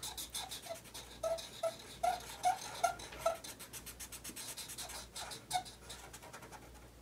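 Sharpie markers scratching on paper in quick back-and-forth strokes as a cartoon eye is shaded in, with a run of short squeaks from the felt tip, dying away near the end.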